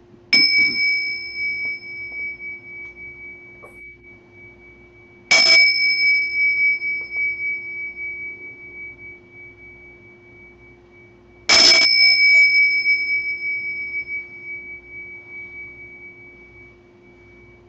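A pair of small hand cymbals struck together three times, about five to six seconds apart. Each strike leaves a clear, high ring that fades slowly.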